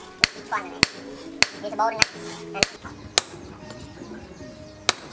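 Hand hammer striking red-hot chainsaw-bar steel on an anvil: six sharp, ringing blows about 0.6 seconds apart, then a pause and one more blow near the end.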